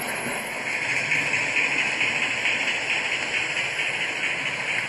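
Bachmann OO gauge model express train running past: a steady rushing hiss of the train on the track, with no separate beats.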